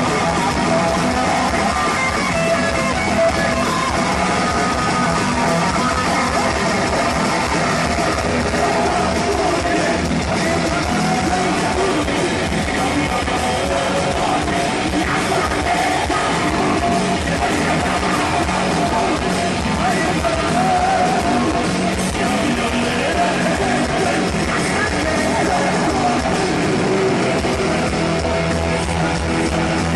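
Heavy metal band playing live at full volume: distorted electric guitars over drums, loud and unbroken throughout.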